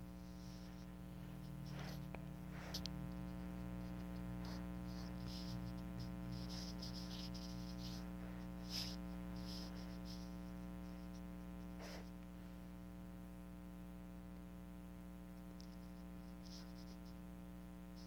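Faint steady electrical hum with many overtones. Scattered soft taps of a fingertip typing on a tablet's touchscreen keyboard come through it from about two seconds in to about twelve seconds in.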